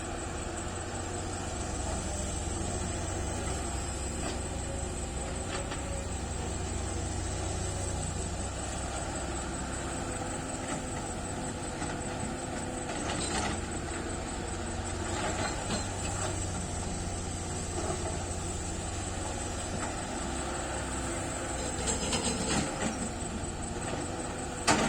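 SANY excavator's diesel engine running steadily with a hydraulic whine, while it digs and loads. A few knocks and clanks come in the second half, the loudest near the end.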